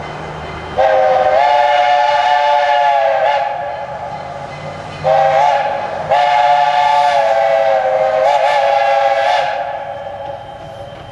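Steam whistle of 1930 Porter 0-6-0 tank locomotive #65, several notes sounding together: a long blast, then a short blast and a long blast, closing the long-long-short-long grade-crossing signal.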